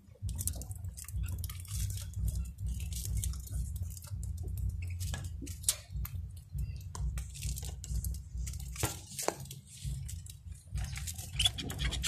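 Canaries cracking seed at a feeder: scattered small crunching clicks over a steady low rumble.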